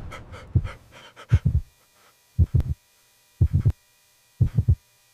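Heartbeat sound effect: slow lub-dub double beats, about one a second, over a faint steady electronic hum. A noisy sound fades out in the first second.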